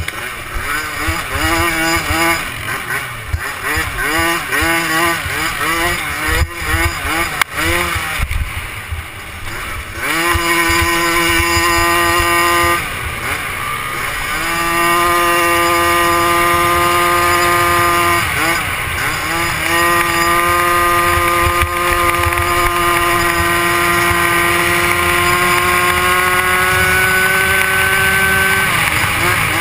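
Youth 90 cc quad's small engine under hard throttle, heard close up from the rider's GoPro. For about ten seconds it revs up and down through a corner. Then it holds a high, steady pitch, easing off briefly twice and climbing slowly until it drops near the end.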